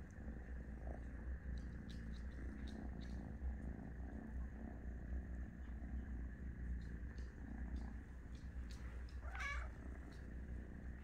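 British Shorthair cat purring close up, a steady low rumble, with one short meow about nine seconds in.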